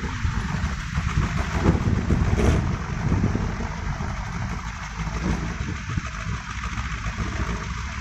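Kolecer, a wooden wind-driven propeller on a tall bamboo pole, spinning in the wind with a loud, steady droning whir that swells about two seconds in.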